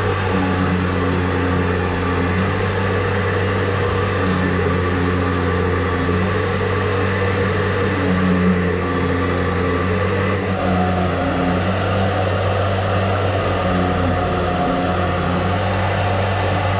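Motor of a drain-cleaning machine running steadily with a constant hum; its tone shifts slightly about ten seconds in.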